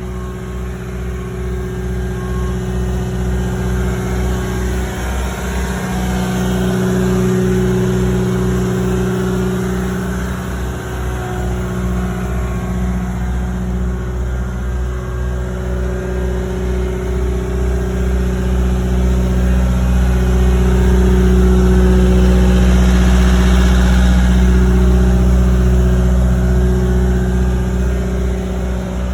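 Diesel engine of a Cat 259D compact track loader running steadily, swelling louder twice.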